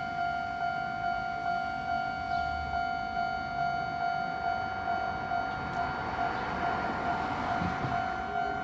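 Japanese level-crossing warning bell ringing, a steady electronic clang about twice a second. In the second half a train's running noise rises as it approaches the crossing.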